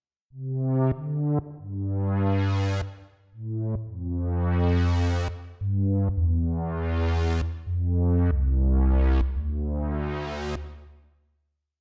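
Charlatan software synthesizer playing a slow sequence of low, bass-heavy notes, its filter sweeping open and closed so each phrase brightens and then darkens again, with a few short clicks between notes. The sound fades out near the end.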